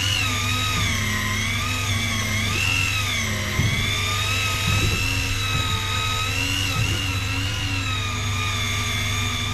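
Electric fishing reel's motor winding in line under the load of a hooked fish, a high whine that wavers up and down in pitch as the load changes, over a steady low hum.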